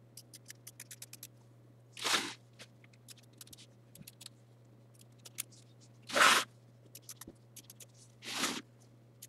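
Scissors trimming appliqué fabric close to the stitching: many quick light snips, with three louder, longer swishes of cutting through the fabric, about two, six and eight and a half seconds in. A steady low hum runs underneath.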